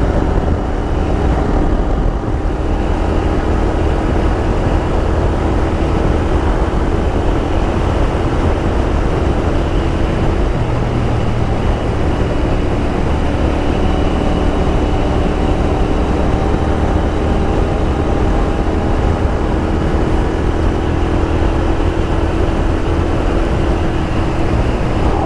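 Royal Enfield Interceptor 650's parallel-twin engine running at a steady cruise through Scorpion aftermarket exhausts, with a slowly drifting engine note over heavy wind rush on a helmet-mounted microphone.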